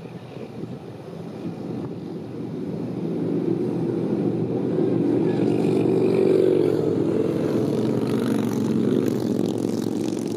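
Low engine rumble that swells to its loudest about six seconds in, then eases off slightly.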